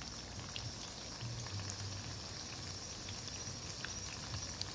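Breaded, beer-battered snapper fillets frying in hot oil in a pan: a steady sizzle with scattered small pops.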